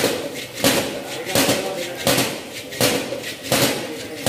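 Metal ladle clanging and scraping against a large metal wok in a steady rhythm, about three strokes every two seconds, as fried rice is tossed and stirred over a gas burner.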